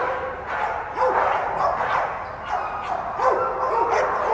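Several dogs barking and yipping over one another, many short barks a second.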